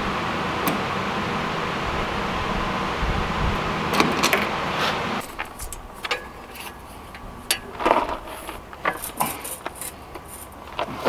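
A steady fan-like hum in the shop with a few metal clinks. After about five seconds it gives way to scattered clinks and rattles of a perforated steel strap being set in a bench vise and bent over the jaw by hand.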